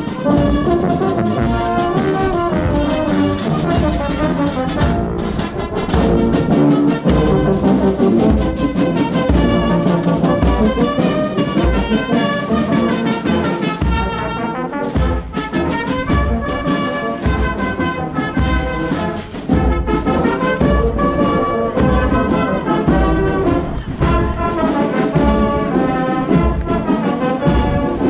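Marching brass band with sousaphones, trombones and trumpets playing a tune, a drum keeping a steady beat.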